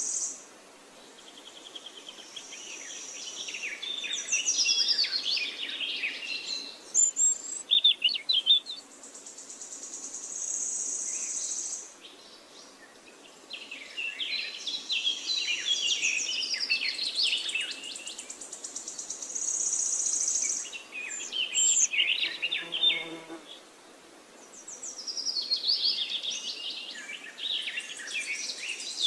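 Birds chirping in bursts of quick high calls, alternating with a high steady buzzing trill that comes back about every ten seconds.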